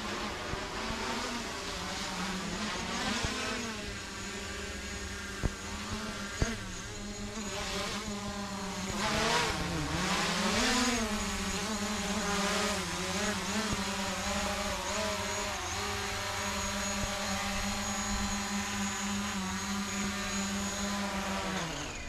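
Quadcopter drone's propellers and motors buzzing with a steady whine, the pitch wavering up and down a few times as it manoeuvres, then cutting off abruptly at the end.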